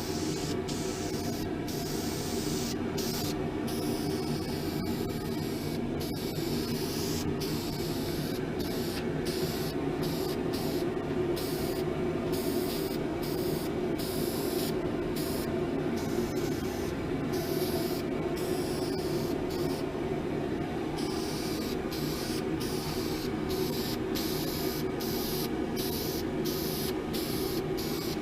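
Compressed-air paint spray gun spraying a full coat over a fresh tack coat: a steady hiss that stops and restarts many times as the trigger is released between passes, over a steady low hum.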